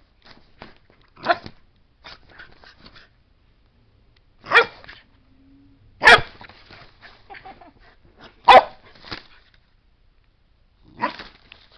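A small puppy barking five times, single sharp barks a second or two apart.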